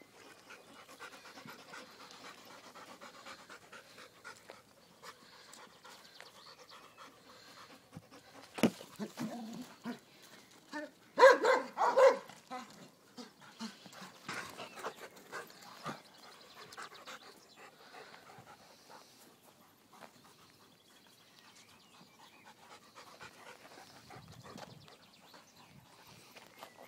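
Old English Sheepdogs panting while playing, with a sharp thump about eight and a half seconds in and a short burst of loud pitched calls around eleven to twelve seconds.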